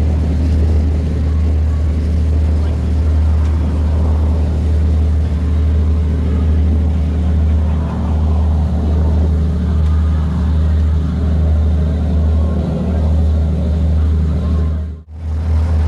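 Boat engine running steadily under way, a low drone with water rushing past the hull. It drops out briefly near the end.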